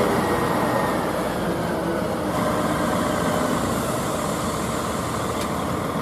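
A DAF CF multi-axle tipper truck's diesel engine running steadily.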